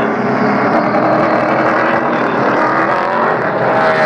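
NASCAR race trucks' V8 engines running past on the oval, a steady loud engine din with a passing truck's engine note falling in pitch near the end.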